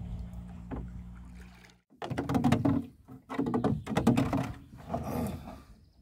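Knocks and clatter of oars and gear against the hull of a small rowboat, a loud irregular run of them after a steady low hum cuts off suddenly near two seconds in.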